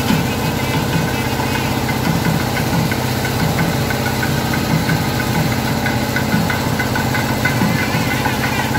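Small red tractor's diesel engine idling steadily close by.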